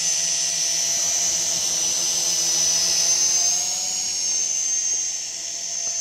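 DWI X35 quadcopter's motors and propellers whining in flight, a steady high-pitched whine that rises slightly in pitch about three and a half seconds in, then grows a little quieter.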